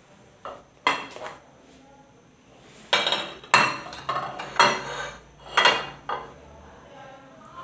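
Kitchenware knocking and clattering on a stone countertop, about seven separate knocks, as plastic mixing bowls and a glass plate of herbs are handled while chicken marinade is mixed by hand.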